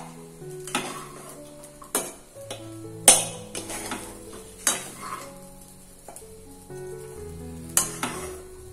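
Spatula stirring quinoa fried rice in a pan, scraping and knocking against the pan every second or so, with the loudest knock about three seconds in and a faint sizzle underneath. Background music plays throughout.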